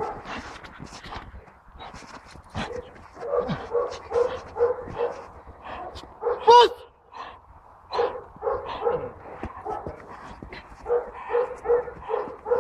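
Belgian Malinois giving short, repeated pitched vocal sounds while holding a bite on a decoy's bite suit, with one louder call about six and a half seconds in.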